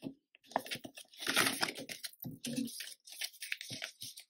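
Polymer banknotes and a clear plastic binder pocket crinkling and rustling as a wad of notes is pulled out of the pocket and fanned out for counting, in uneven bursts.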